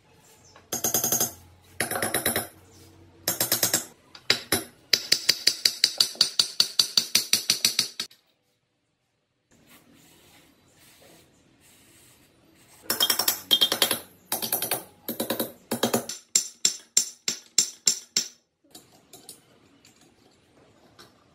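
Hand wire brush scrubbing the top face of an old motorcycle cylinder in brisk back-and-forth strokes. It comes in several bursts of quick strokes, about four a second, and stops dead for a moment partway through.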